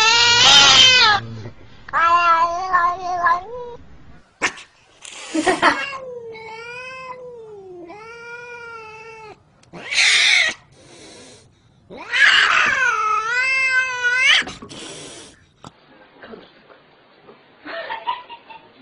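Angry domestic cats caterwauling: a series of long yowls that waver up and down in pitch, broken by short hisses, about ten and fifteen seconds in. Near the end it trails off into quieter sounds.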